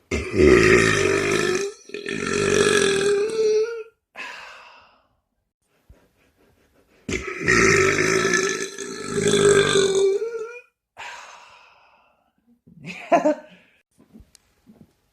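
A person's long, loud burps: two drawn-out belches of about three and a half seconds each, held at a steady pitch and each broken into two parts. Each is followed by shorter, fainter sounds.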